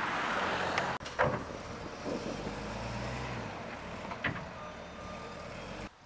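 Wheel loader's diesel engine running steadily, with a few sharp knocks about one second in and again past four seconds.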